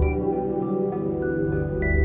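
Ambient music: layered sustained tones like a singing bowl or pad, with soft high bell-like notes entering one after another.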